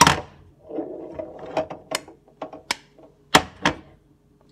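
Eggs being knocked against the rim of a bowl to crack them: a series of sharp taps and clicks, with two loud taps close together near the end.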